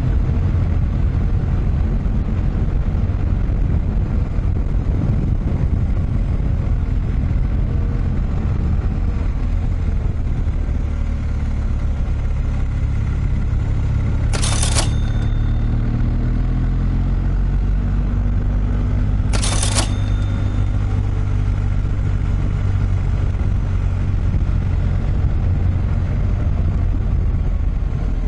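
Vehicle engine running under way with tyre and road noise, its pitch rising and falling. Two short hisses come about five seconds apart midway through.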